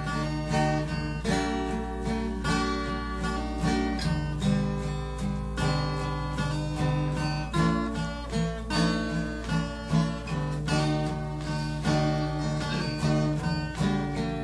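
Acoustic guitar strummed in a steady rhythm, playing chords in an instrumental break with no singing.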